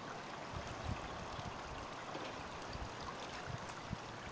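Shallow creek water trickling steadily, with a few faint low thumps.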